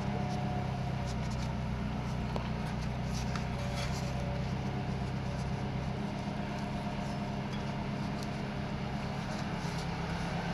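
A steady low mechanical hum, with faint scattered rubbing and clicking as a rubber garage-door seal is pushed and worked into its aluminium track by gloved hands.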